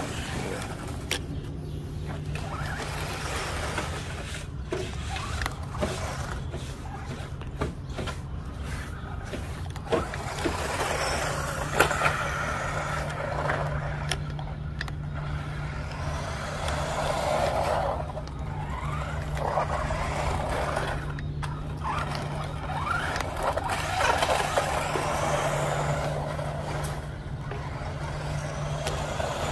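Radio-controlled monster truck driving over grass, its motor whine rising and falling in pitch as it speeds up and slows, over a steady low hum.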